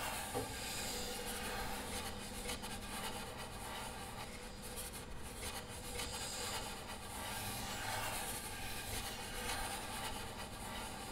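Violin bowed for noise rather than clear notes: a breathy, hissing, scraping texture of repeated bow strokes over a faint low held tone.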